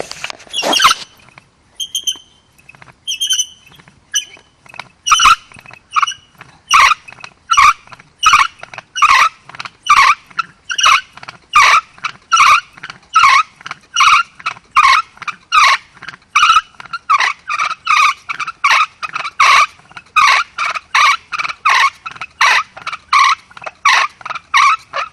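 Bow drill spindle squeaking in the fireboard with each back-and-forth stroke of the bow, light and uneven for the first few seconds, then settling into a loud, steady rhythm. It is the friction of spinning up a coal, which brings smoke from the fireboard notch.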